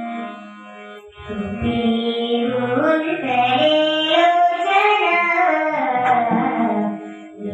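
A young girl singing a devotional bhajan into a microphone, accompanied by harmonium and pakhawaj. The singing voice comes in about a second in, after a held harmonium tone.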